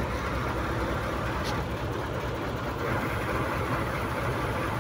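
Truck engine idling with a steady low, pulsing rumble.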